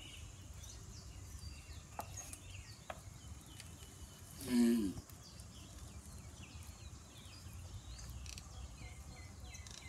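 Male giant tortoise mating, giving one loud call that falls in pitch, about four and a half seconds in, over faint chirping of small birds.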